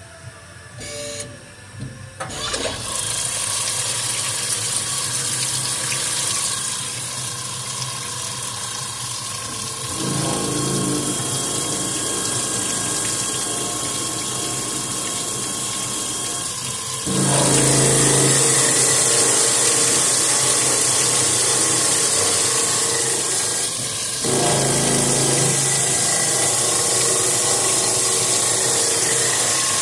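Machine spindle boring out the lifter bores of a Volvo cylinder head, running steadily under a stream of splashing coolant. It starts about two seconds in, grows louder about a third of the way through and again past the middle, and eases briefly about four-fifths of the way in.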